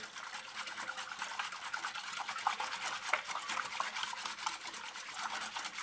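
Metal wire whisk beating flour and water into a thin batter in a glass bowl: fast, continuous scratchy strokes of the wires through the liquid and against the bowl.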